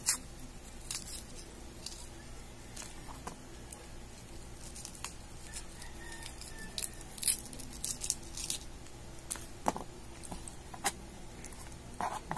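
Dry onion skin being peeled off by hand: faint papery crackles and scattered small clicks over a low steady hum, with a few louder clicks near the end.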